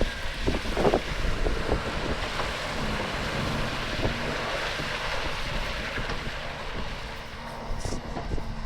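Heavy earthmoving machinery, an excavator and dump truck, running steadily with a low diesel hum, mixed with wind buffeting the microphone; a few knocks about a second in.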